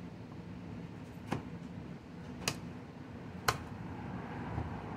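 Three sharp clicks about a second apart as a small plastic engine part and its fuel line are handled on a metal workbench, over a low steady hum.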